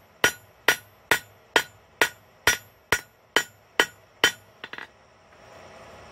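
Blacksmith's hand hammer striking a hot quarter-inch steel bar on an anvil with its flat face, flattening the twisted hook: a steady run of about ten ringing blows, two a second. The hammering stops a little over four seconds in, followed by a couple of light taps.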